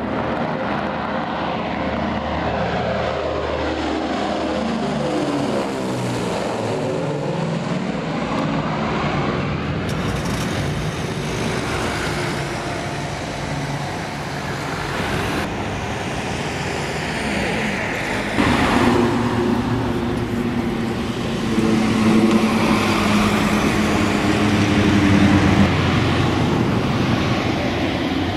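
Lockheed L-1049 Super Constellation's four Wright R-3350 radial piston engines and propellers at take-off power as the airliner lifts off and climbs away. The engine drone falls in pitch as it passes, about three to six seconds in. Later it jumps abruptly in tone and level a few times.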